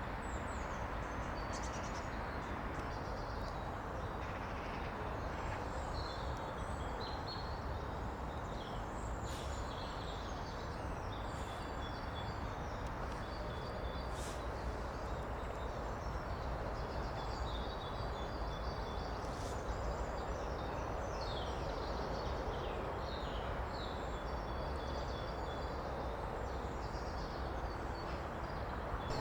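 Woodland stream running steadily, with birds singing and chirping over it throughout.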